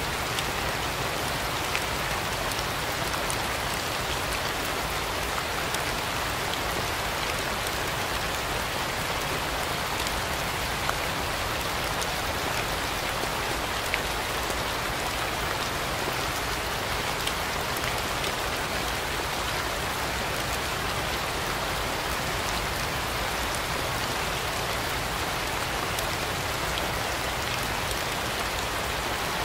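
Steady rain falling, an even hiss with individual drops ticking here and there.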